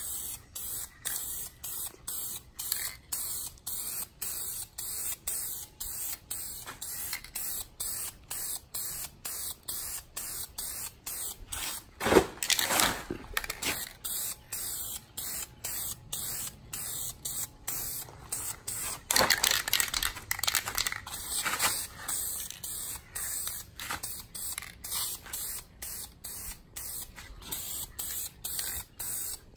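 Red leather dye being sprayed onto a leather car seat in light coats: a steady spray hiss that grows louder twice, about a third of the way in and again about two-thirds through.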